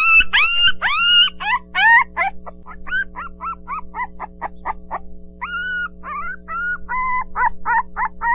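Puppies yipping and whining: quick high-pitched calls that rise and fall, several a second, with a few longer whines in the middle.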